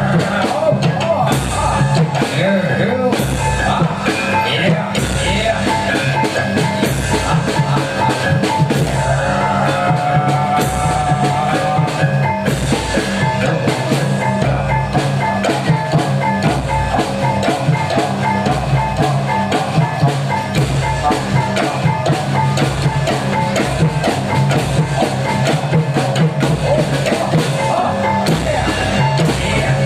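Loud live band music with a steady drum beat and a driving rock-style accompaniment.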